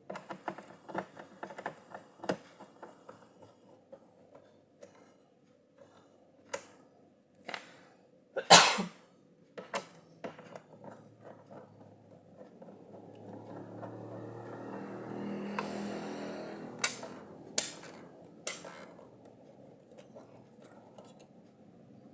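Clicks, taps and scraping of plastic and small hardware as the back cover of an ASUS A4320 all-in-one PC is worked open, with one loud, sharp noise about eight seconds in and a longer swelling scrape in the second half.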